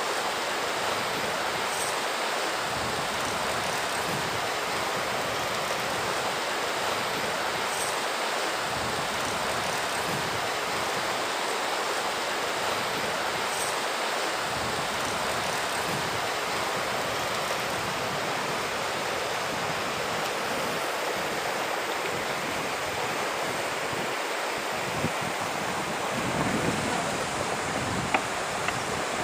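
Steady rushing of river water flowing over rocks, with wind; a few faint knocks near the end.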